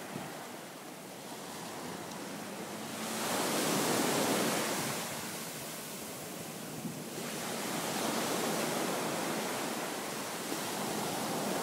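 Ocean surf breaking and washing up the beach, swelling loudest a few seconds in and again after the middle.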